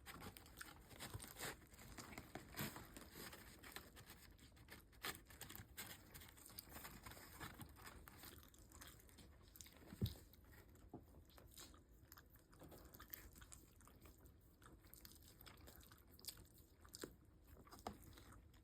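A Shiba Inu chewing and crunching food, with faint irregular crunches and clicks and one louder knock about halfway through.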